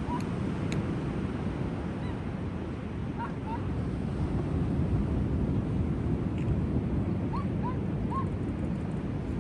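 Steady low rumble of surf and wind at the sea's edge, with a bird giving short, upward-hooked calls in small groups: one at the start, two about three seconds in, and three about seven to eight seconds in.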